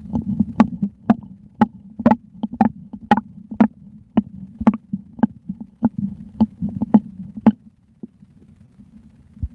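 A belly sloshing close to the microphone in sharp, regular pulses, about two a second, over a low steady hum. The pulses stop about three-quarters of the way through.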